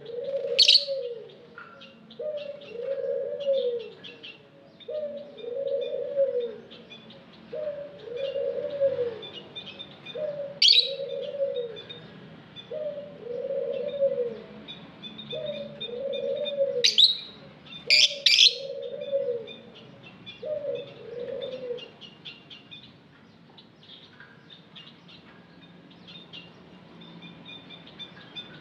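Lovebirds chirping and twittering, with five loud, sharp, high calls, twice close together about two-thirds of the way in. Beneath them, a low two-part cooing call from another bird repeats every two to three seconds and stops about three-quarters of the way through.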